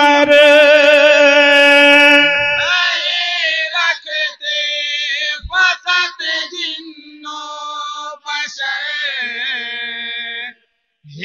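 Men's voices chanting a naat, an Urdu devotional poem in praise of the Prophet, with no instruments. A long note is held for about two seconds at the start, then the melody goes on in shorter phrases that bend in pitch, breaking off briefly near the end.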